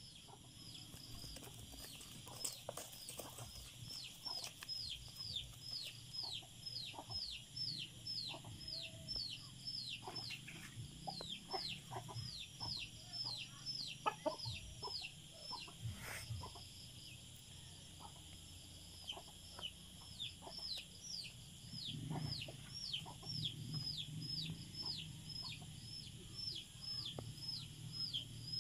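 Red junglefowl clucking in short, scattered calls. Behind them runs a steady series of high, falling chirps, about two a second.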